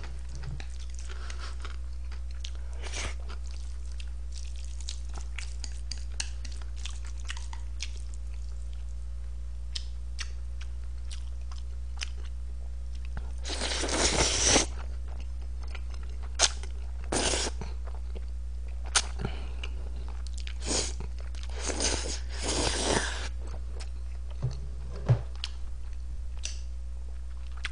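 Close-miked eating: a long slurp of black-bean sauce noodles (jjajangmyeon) about halfway through, followed by several shorter slurps and chewing noises.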